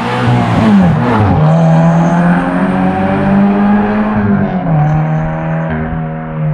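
Flat-four boxer engine of a Toyota 86–platform coupe (Scion FR-S / Subaru BRZ / GT86) running through an aftermarket cat-back exhaust, pulling hard under load. Its pitch falls sharply about a second in, holds and creeps up, then drops again near five seconds.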